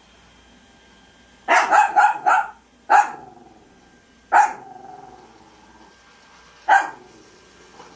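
Small dog barking: a quick run of four barks, then three single barks spaced a second or two apart.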